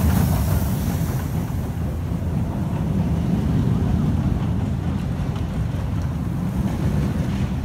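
Steady low rumble of wind buffeting the microphone together with a steel roller coaster train running along its track, easing slightly over the first second or so.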